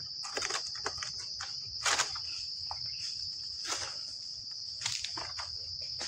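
Steady high-pitched drone of insects, with a few short rustles and knocks, the loudest about two seconds in.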